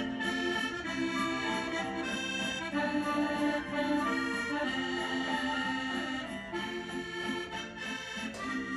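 Instrumental background music: held chords under a moving melody.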